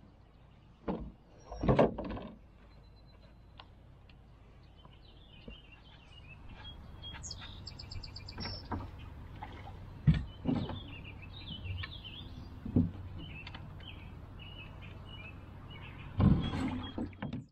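Scattered hollow knocks and thumps of gear and a paddle against a canoe hull as a person loads it and climbs aboard at the shore, the loudest about two seconds in and a cluster near the end. Birds chirp in the background.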